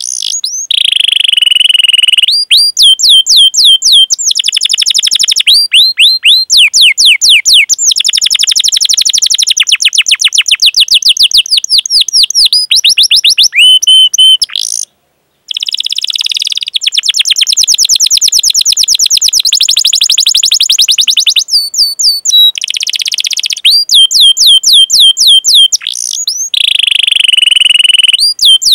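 Domestic canary in full song: runs of sharp, repeated rising 'cuit cuit' chirps alternating with long, fast rolled trills. The song cuts off briefly about halfway, then carries on.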